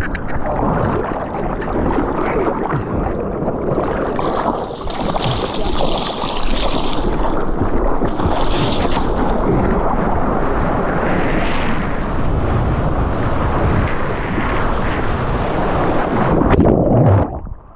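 Water rushing and spraying over a surfboard's nose and the GoPro mounted on it as the board runs through whitewater on a small wave, with wind buffeting the microphone. The loud rush goes on steadily and cuts off suddenly near the end.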